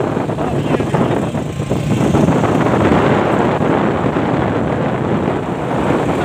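Wind rushing over the microphone of a moving motorcycle, with the bike's engine and road noise underneath, steady throughout.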